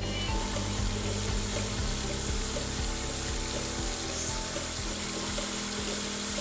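Dr.pik vacuum oral care device running: a steady watery hiss of suction drawing water and air through the mouthpiece tube, over background music.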